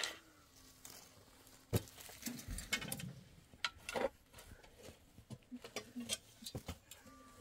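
Steel shovels scraping and striking stony dirt, with irregular scoops and clinks every half second to second.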